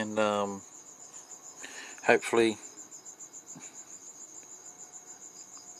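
Crickets chirping steadily in the background, a fast, even, high-pitched pulsing. A man's voice cuts in twice over it: a drawn-out, falling hesitation sound at the very start and a short one about two seconds in.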